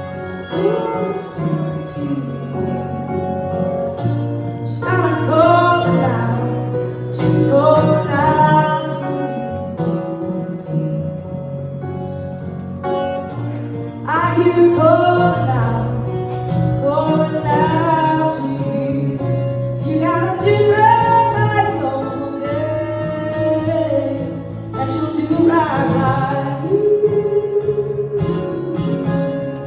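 Live acoustic music: a woman singing over a picked acoustic guitar. The guitar plays alone at first, and the voice comes in about five seconds in, singing in phrases with short pauses between them.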